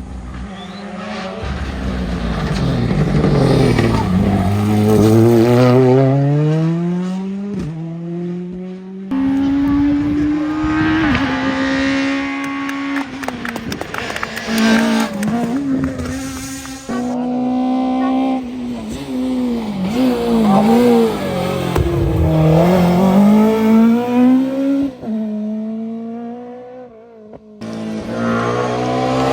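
Rally cars' engines at full stage pace: the note falls as a car brakes and shifts down, then climbs hard as it accelerates away through the gears. The passes follow one another with abrupt cuts between them.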